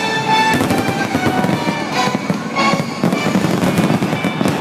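Aerial fireworks going off in a dense barrage: many overlapping bangs and continuous crackling, with several stronger bursts standing out. The show's music plays underneath.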